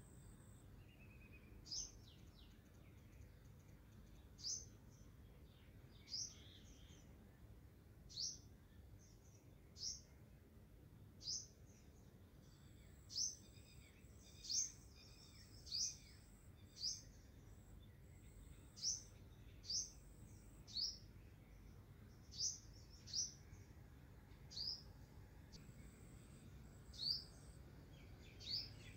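A small bird chirping over and over, a short falling note every second or two, faint against a low steady hum.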